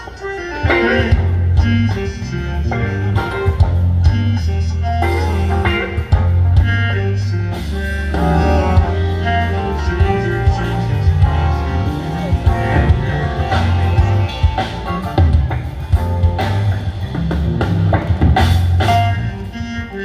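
Live band playing: electric guitar, bass guitar, keyboards and drum kit, with a strong bass line and a steady drum beat.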